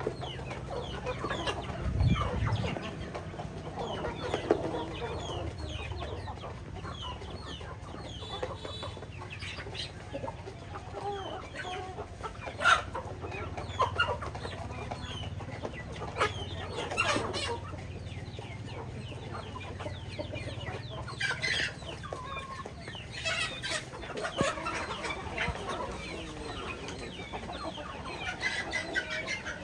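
Chickens clucking and calling on and off, with a few louder squawks or crows standing out.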